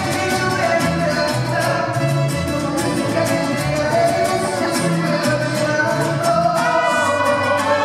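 Mariachi ensemble playing live: violins, flute and trumpet over a strummed vihuela and guitar rhythm and a guitarrón bass line, with a woman singing.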